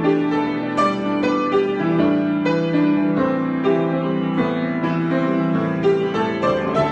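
Solo piano improvisation: notes and chords are struck several times a second over a sustained lower line.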